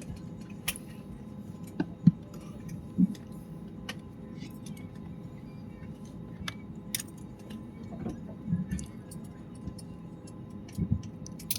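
Scattered sharp clicks and a few soft low knocks at irregular intervals over a steady hum.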